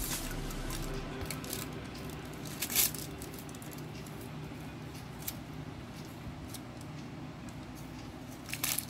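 Clear plastic bag rustling and crinkling as a kitten bats at it, with one loud crinkle a little under three seconds in and smaller crackles scattered through.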